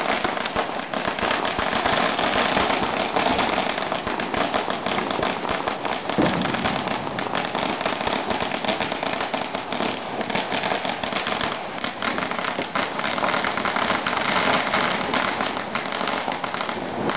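Strings of Chinese firecrackers going off in the street, a dense, unbroken crackle of rapid bangs with no let-up.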